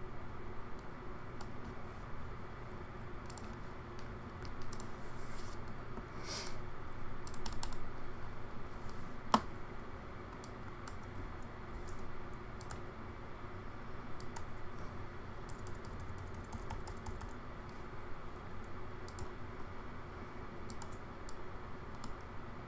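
Scattered computer keyboard and mouse clicks, irregular and light, with one sharper click about nine seconds in, over a steady low background hum.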